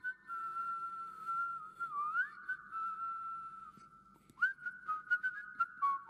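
High whistled notes, held and gliding in pitch, with quick upward scoops into new notes about four and a half and six seconds in. A few light clicks come in the second half.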